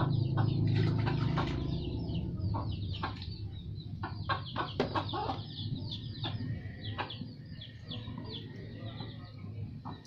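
Chickens clucking, with many short, high, falling peeps throughout. Light knocks and splashes come from a child's hands in a plastic tub of water. A low hum fades out over the first two seconds.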